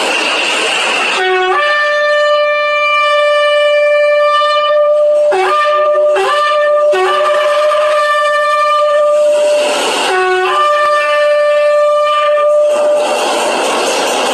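Shofar blown in a series of blasts: a long held note, a couple of short broken blasts, another long note, and a last long blast near the end. Each blast starts on a low note and jumps up to a higher held tone. A loud rushing noise fills the first second and the gap before the last blast.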